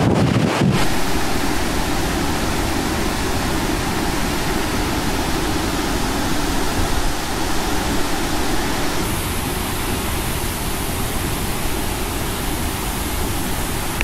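Steady rushing noise of a large waterfall, with wind on the microphone adding a low rumble in the first second.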